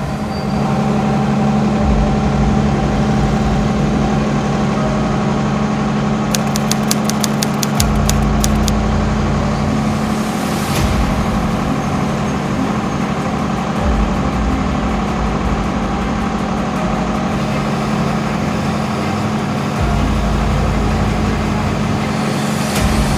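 Heavy diesel engine running steadily, with a deep, shifting rumble under it. About six seconds in comes a quick run of about ten sharp ticks.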